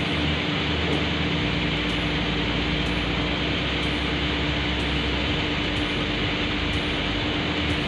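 Electric water pump on a pressure tank running steadily, a constant hum over an even rushing noise. It has air in it, so it runs without drawing water.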